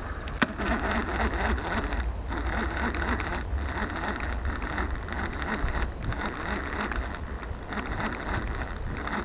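Daiwa Millionaire ST-1000, a small round vintage baitcasting reel, cranked steadily to retrieve a spinner: a running gear whir of fast ticks that eases off briefly a few times, over a low rumble of wind on the microphone. One sharp click about half a second in.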